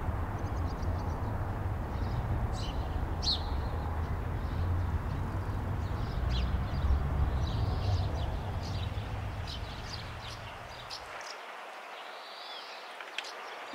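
Small birds chirping in short, scattered calls over a deep outdoor rumble; the rumble drops away about eleven seconds in, leaving the chirps on their own.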